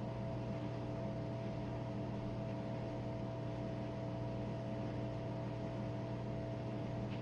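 Jenn-Air dishwasher running mid-cycle: a steady motor hum with water spraying inside the tub, in its quick wash cycle.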